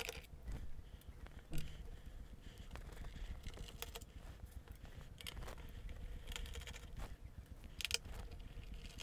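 A screwdriver backing screws out of a laptop's plastic bottom case, with scattered small clicks and scrapes as it turns and as the screws are handled.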